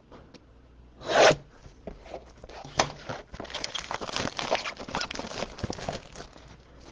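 A blaster box of basketball trading cards being torn open, with its wrapping and cardboard ripped. There is one short rip about a second in, then a few seconds of ripping and rustling.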